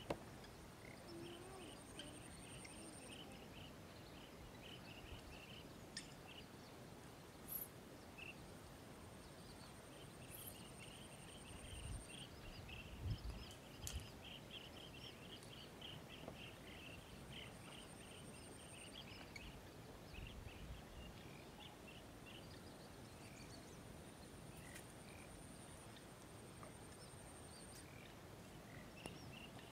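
Quiet countryside ambience: a trill of rapid chirps that swells about a third of the way in, and a thin high steady whine that comes and goes. A few soft low thumps fall near the middle.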